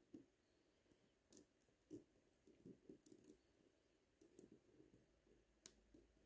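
Faint, scattered clicks and taps of tweezers and small metal watch parts while fitting the train wheel bridge of a Miyota 8215 movement and getting the wheel pinions to seat, with one sharper click near the end.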